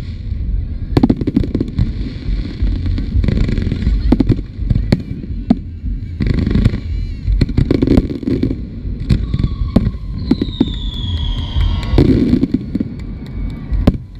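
Fireworks display: aerial shells bursting one after another with sharp bangs over a continuous low rumble, and a whistle falling in pitch about ten seconds in.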